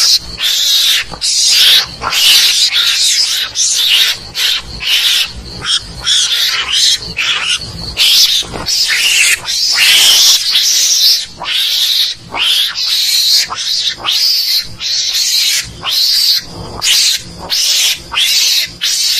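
Mongoose (garangan) calls: a loud, continuous run of short, shrill, raspy calls, one after another with only brief gaps.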